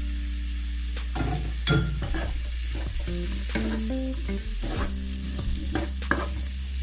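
Onions, bell peppers, grated garlic and ginger sizzling in hot oil in a pot, stirred with a spoon that scrapes and clicks against the pot.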